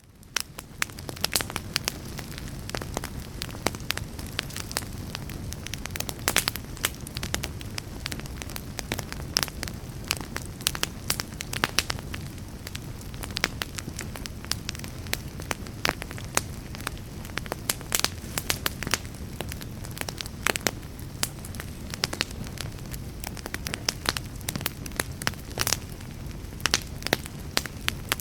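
Wood fire burning in a fireplace: a steady low rush of flames with frequent, irregular sharp crackles and pops from the burning wood. It swells up out of a brief silence at the start.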